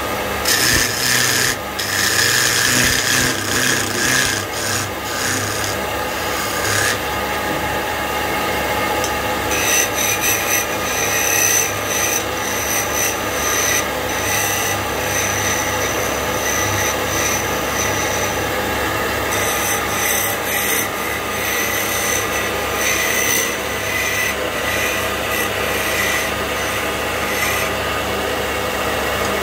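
Wood lathe running while a hand-held turning chisel cuts into a spinning wooden table-leg spindle, a steady scraping of steel on wood over the lathe's hum.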